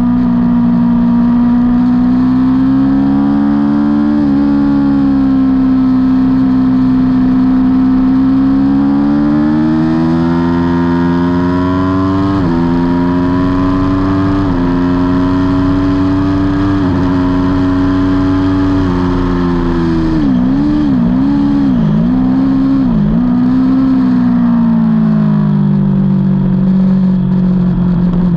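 Aprilia Tuono V4's V4 engine at race pace, heard on board: its pitch climbs and then drops sharply several times through the gears, with a run of quick dips about two-thirds through as it shifts down, then falls away near the end.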